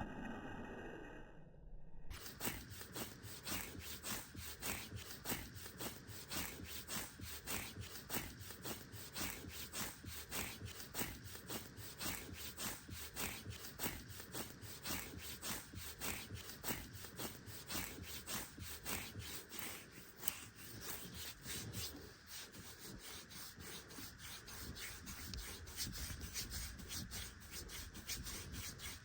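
Fingernails scratching skin on arms with severe eczema: rapid, rhythmic rasping strokes that begin about two seconds in and keep going. Before that, a brief muffled sound.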